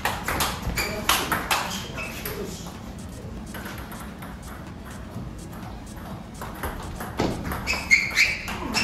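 Table tennis ball struck back and forth in two rallies: quick, sharp clicks off the bats and the table, with a lull of a few seconds between points.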